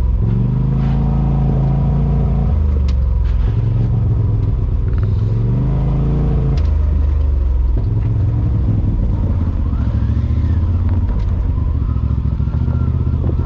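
Polaris RZR side-by-side's engine running under way, its pitch rising and falling several times as the throttle is worked, with a few knocks and rattles from the machine over rough ground.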